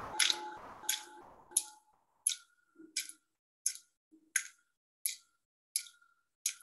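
Sharp, evenly spaced clicks, about three every two seconds, as a bell-like ringing dies away over the first second and a half.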